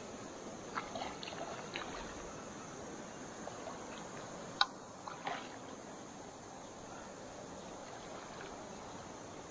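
Faint water trickling and small splashes, with a few light clicks around the first two seconds and one sharp click about halfway, over a steady high insect buzz.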